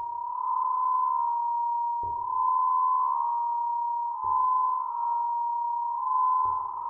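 Acoustic feedback between microphones and a loudspeaker: one steady, high, pure tone that swells and eases about every two seconds. The feedback is shaped by foam-board shields moved between microphone and speaker and processed live by computer. Each swell opens with a brief low thump.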